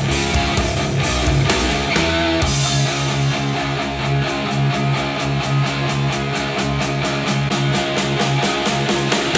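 Instrumental music with guitar played through a pair of studio monitor speakers and recorded by a microphone in the room, first through PreSonus E5 XT monitors and then through Genelec 8020 monitors. About two and a half seconds in, the music changes and a steady, even beat sets in.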